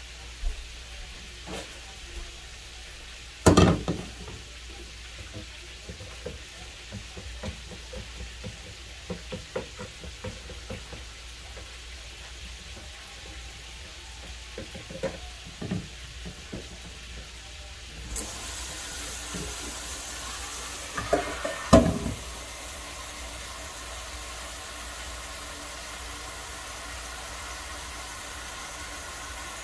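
Clinks and knocks of a utensil and a plastic pitcher of tea being stirred and handled at the sink, over a faint sizzle of chicken frying. About 18 seconds in, the kitchen tap starts running steadily into a copper frying pan in the sink, with a few knocks as the pan is handled.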